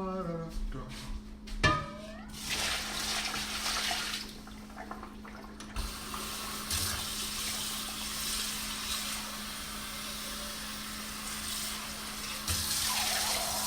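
Kitchen tap running water into the sink as a wok is rinsed out, with a brief lull about four seconds in. A single sharp knock comes just before the water starts.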